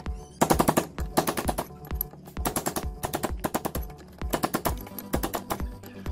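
Metal file strokes grinding out the welded eye of a cast axe head, a series of rough rasping passes of about half a second each, over background music with a steady beat.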